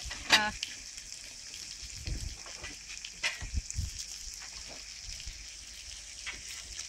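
Bacon and pancakes frying on a large steel griddle: a steady sizzle, with scattered taps and scrapes of a metal spatula as pancakes are turned. A brief, loud pitched sound comes about a third of a second in.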